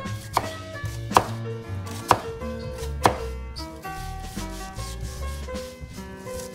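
Knife chopping on a cutting board: four sharp strikes about a second apart in the first three seconds, then lighter taps, over background music.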